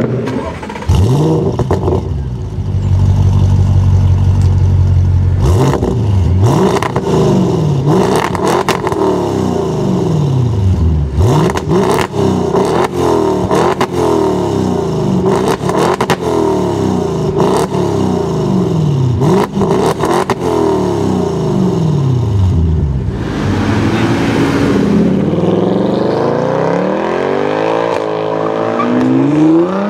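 Audi RS7's twin-turbo V8 running steadily, then free-revved over and over in short blips that rise and fall every second or two. Near the end a car accelerates hard with a rising engine note.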